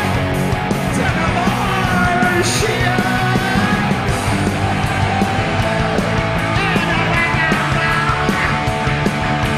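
Punk rock band playing live, loud and unbroken, with shouted vocals over distorted guitar and drums.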